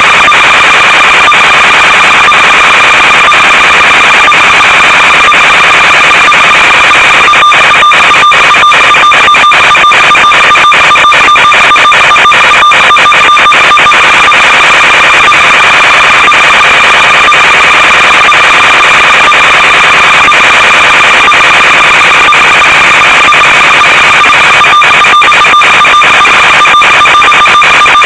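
Loud, steady buzzing static from an analog FPV video receiver's audio channel: hiss with a fixed buzz tone. From about seven seconds in it is broken by crackles and brief dropouts, as is typical of an analog video link.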